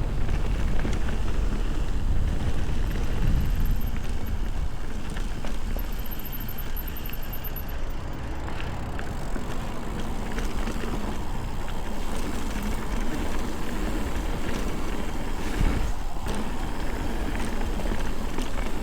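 Ibis Ripley mountain bike riding down a dirt singletrack: steady rumble of wind on the action camera's microphone and tyres rolling over dirt, with scattered clicks and rattles from the bike over bumps.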